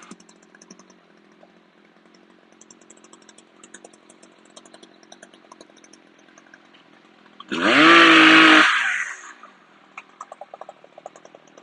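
Chainsaw idling, then revved hard for about a second roughly two-thirds of the way through before the engine winds back down to idle.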